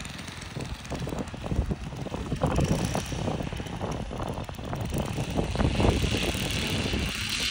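Small four-stroke nitro engine of an RC Corsair model idling, firing unevenly as a rapid, irregular run of pops.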